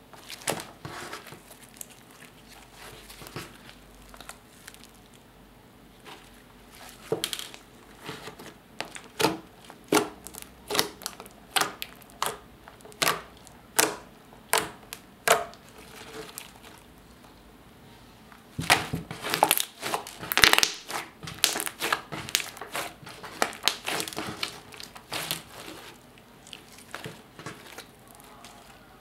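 Clear slime mixed with black eyeshadow and glitter being stretched, poked and pressed by hand, giving sticky popping and crackling clicks. The clicks come about one a second in the middle, then crowd together in a dense run a little past halfway.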